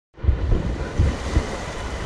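Ocean surf washing on a beach, with wind on the microphone; several low thumps in the first second and a half.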